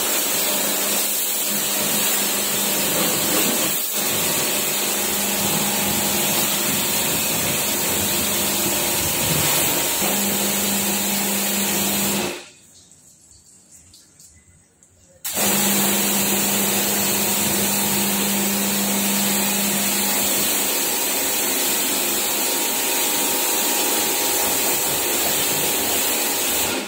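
Pressure washer spraying water onto a car: a steady hiss of the jet over the hum of the pump motor. It cuts out for about three seconds near the middle, then starts again.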